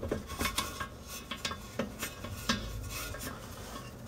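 Light, irregular metal clicks and scraping as a brake caliper's mounting bolt is turned back in by hand, metal tapping and rubbing against the caliper.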